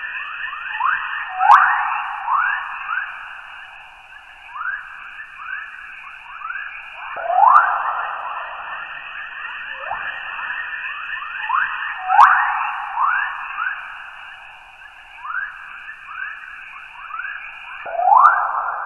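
Earth's electromagnetic 'chorus' radio emissions converted to audio: a steady hiss with many quick rising chirps, like birdsong. Stronger, longer sweeps stand out about every five seconds, with a few faint clicks.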